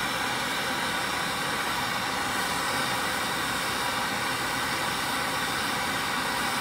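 Handheld gas torch flame hissing steadily as it heats a metal pocket clip being bent in a brake.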